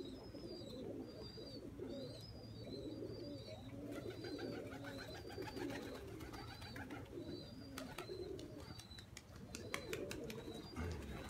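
Domestic pigeons cooing continuously, with a small bird's short high chirp repeating about twice a second and a few sharp clicks after the middle.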